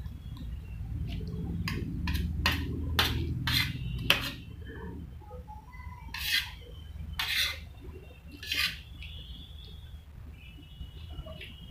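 Steel spoon clinking and scraping against a steel plate while scooping fried rice: a quick run of sharp clinks in the first few seconds, then three longer scrapes.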